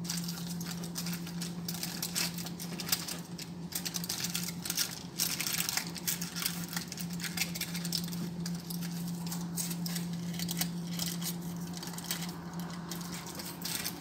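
Aluminum foil crinkling and rustling in irregular bursts as a foil-wrapped chicken mince roll is rolled and pressed by hand, with a steady low hum underneath.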